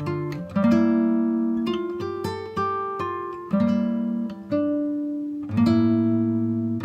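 Background music: acoustic guitar, plucked notes and chords ringing out one after another.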